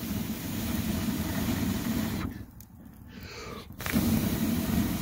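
A person blowing hard into the wood fire in an offset smoker's firebox to make the smoldering wood flame up: two long, breathy blows of about two seconds each, with a pause between.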